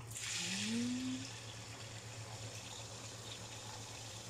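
Beaten eggs with spring onion poured into hot oil in a wok: a loud sizzle as the egg hits the oil in the first second or so, settling to a steady, quieter sizzle.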